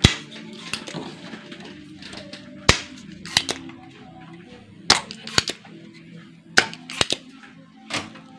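Spring-loaded desoldering pump snapping: about six sharp, irregularly spaced snaps as its plunger fires to suck molten solder from joints on a TV circuit board, freeing a resistor.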